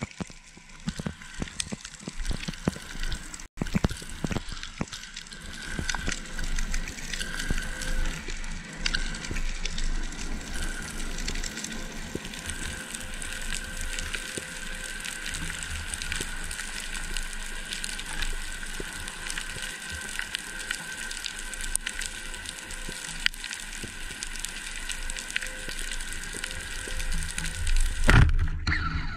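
Underwater ambience picked up through an action camera's waterproof housing: a steady wash of water noise with scattered crackling clicks. A sudden louder rush of water comes near the end as the camera lurches.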